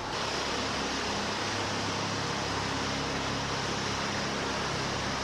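A steady mechanical hum with an even hiss over it, unchanging throughout.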